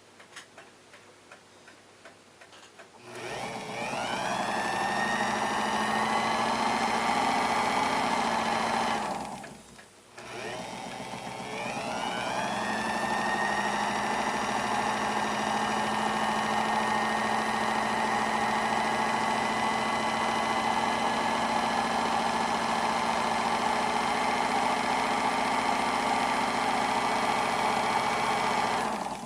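Small electric motor spinning the balance wheel of a 1948 Westclox Big Ben for pivot polishing. It winds up about three seconds in and runs with a steady whine, stops briefly about ten seconds in, then winds up again and runs steadily until it cuts off at the end. There is light ticking before it starts.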